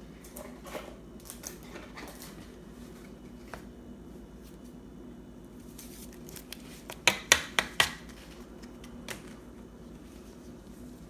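Trading cards and packs being handled on a table: faint rustling and scattered light clicks, with a quick run of about five sharp clicks around seven seconds in.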